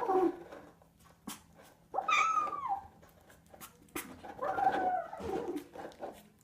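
A pet animal's drawn-out whining calls: a short cry about two seconds in that rises and falls, and a longer, lower one a couple of seconds later, with a few light clicks between.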